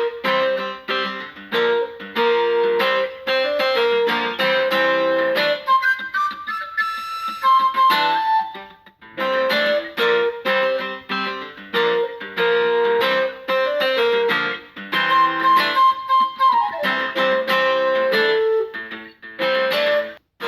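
Samsung Galaxy S5 ringtone playing: a quick, guitar-like plucked melody that dips briefly about nine seconds in and then starts over.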